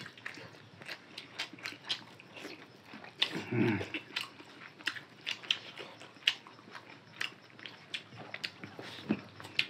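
Close eating sounds: irregular wet mouth smacks and chewing clicks, several a second, from people eating rice and curry with their hands, with a brief vocal sound a little over three seconds in.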